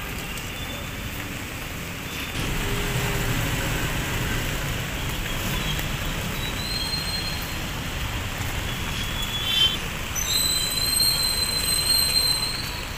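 Traffic on a rain-wet city street: a steady wash of tyre and rain noise, with a vehicle's low engine rumble swelling about two seconds in. Near the end a high, steady squeal sounds for about three seconds.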